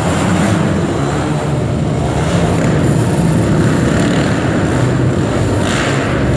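Small quad bike (ATV) engine running as it rides the dirt track, heard inside a large hall.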